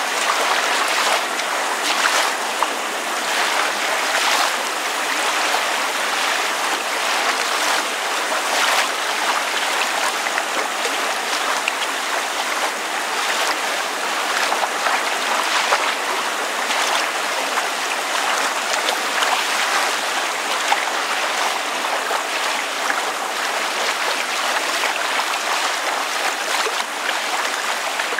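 Water lapping and splashing against a surface, with rain falling: a steady, dense wash of water noise with many small splashes through it.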